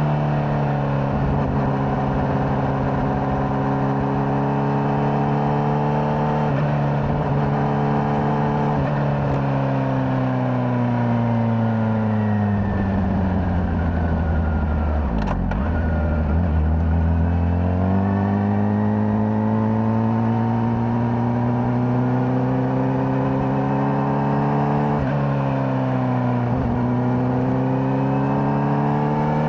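Honda CBR600RR inline-four engine on its stock exhaust, heard from the rider's seat while riding. Engine speed holds fairly steady, then falls for several seconds as the bike slows. There is a brief sharp click about halfway through, then the engine speed rises again, with short dips in pitch near the end.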